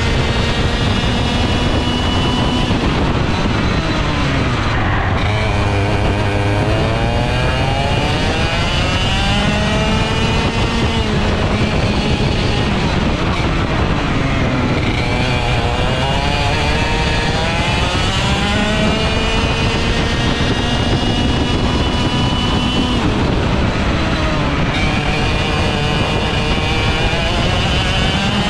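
ROK GP 125cc two-stroke TaG kart engine at racing speed. The revs drop off and climb again several times, falling for the corners and rising back up out of them.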